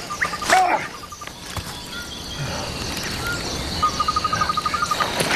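Insects trilling in a fast pulsed chirp that stops and starts again, with a few short high chirps and a steady high hiss of nature ambience.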